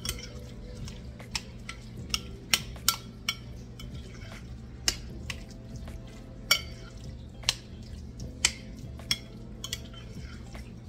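A utensil knocking and clinking against a glass baking dish at irregular intervals as a thick casserole mixture is stirred, over a steady low hum.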